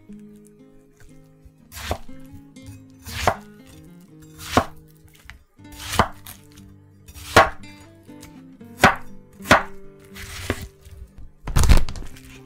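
Kitchen knife chopping through watermelon flesh and rind onto a wooden cutting board: about nine separate cuts, each a sharp knock, roughly one every second to second and a half, the loudest near the end.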